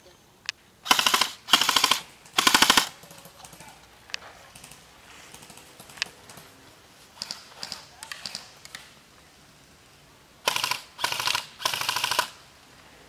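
Airsoft gun firing on full auto in short bursts, each a rapid rattle of shots. There are three bursts in the first few seconds and three more near the end, with fainter shots between them.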